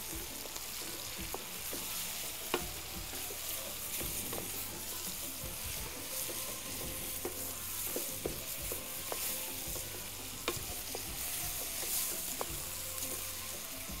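Chopped shrimp and diced potato frying in a metal pan, sizzling steadily, while a wooden spatula stirs them with scattered scrapes and light knocks against the pan.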